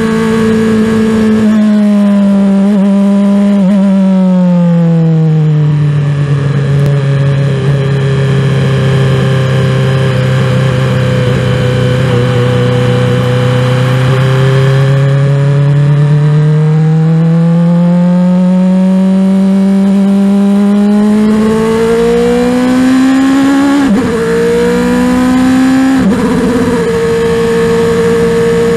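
Formula 1 car's engine heard from the cockpit at moderate revs. The note falls as the car slows and holds low through the middle, then climbs again under acceleration, with two brief breaks near the end as it shifts up.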